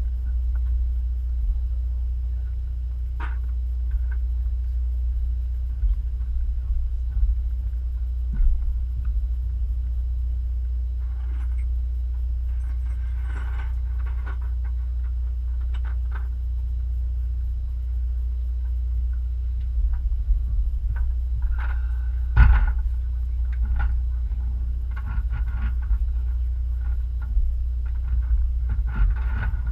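Steady low engine rumble, with occasional faint knocks and clatter over it.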